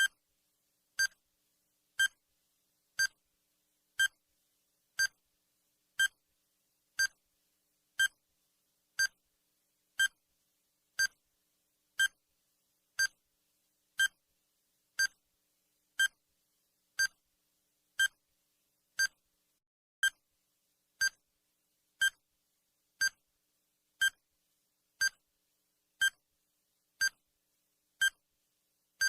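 Countdown timer's short electronic beep, sounding once every second, with silence between beeps.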